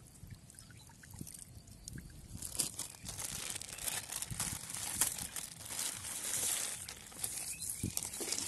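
Close rustling and handling noise with scattered sharp clicks, getting louder after about two and a half seconds.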